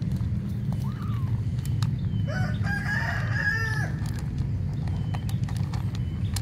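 A rooster crows once, a long call starting a little after two seconds in, over a steady low rumble. A kitten gives a short mew about a second in.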